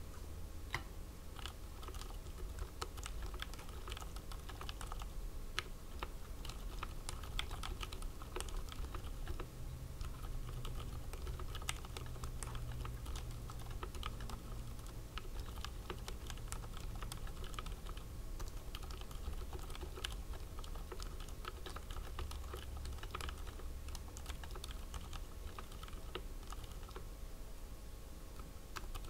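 Continuous typing on a RAMA WORKS M60-A 60% mechanical keyboard fitted with Aliaz Silent Tactile 60g switches: a steady, irregular run of key presses.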